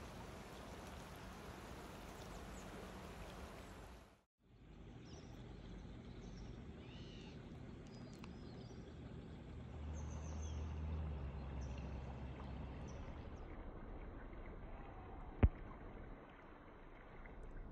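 Faint outdoor riverside ambience: a steady hiss with a low wind rumble on the microphone that swells about ten seconds in. The sound cuts out for a moment about four seconds in, and a single sharp click comes near the end.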